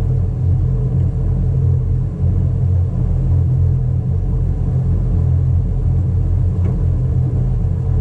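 Tow boat engine running with a steady low rumble.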